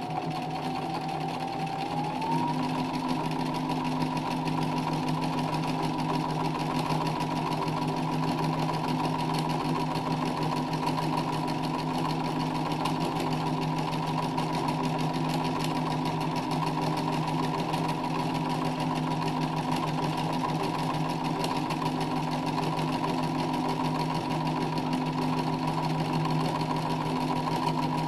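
Sewing machine stitching fast in free-motion embroidery, its motor whine rising over the first two seconds or so and then holding steady at full speed, with the rapid chatter of the needle strokes.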